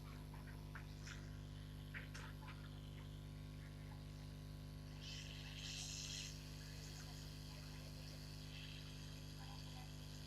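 Faint steady electrical hum, with a few small clicks early on and a short hiss about five seconds in.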